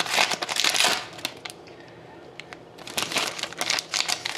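Trading card pack wrapper being torn open and crinkled by hand for about the first second, then crinkling again near the end as the pack is handled.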